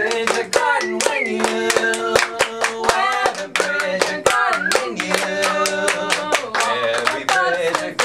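Several voices singing together over a steady rhythm of hand claps.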